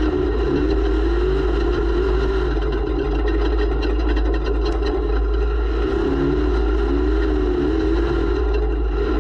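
Off-road race vehicle's engine running at speed, heard from a camera mounted on the vehicle: a steady drone whose pitch wavers up and down, over a heavy low rumble with scattered clicks and knocks.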